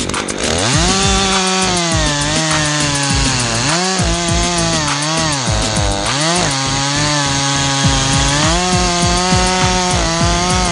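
Chainsaw revving up just after the start, then cutting into elm wood, its engine pitch dipping and recovering several times as the chain loads in the cut.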